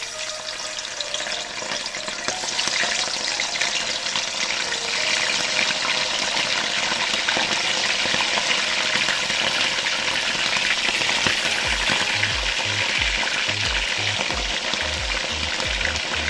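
Chunks of raw meat frying in hot oil in a kazan, a loud steady sizzle that builds over the first couple of seconds as more pieces go into the oil.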